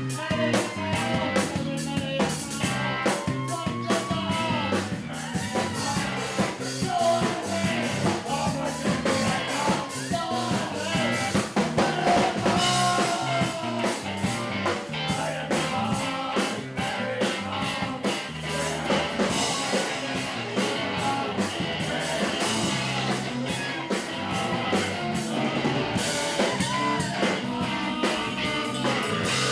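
Punk rock band playing live: drum kit, electric guitar and a singing voice, continuous and loud.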